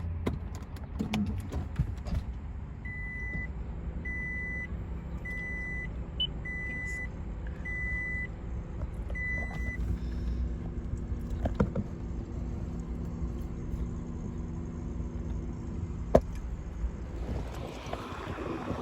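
Dashboard warning chime of a 2009 Toyota Prius that won't start, beeping six times at about one beep a second over a low hum and scattered mechanical clicks.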